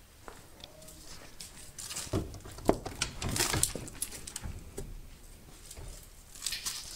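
The door of a 1974 Dodge 600 truck being unlatched and swung open: scattered clicks and knocks, with one sharp click about two and a half seconds in, then rustling as the door is handled.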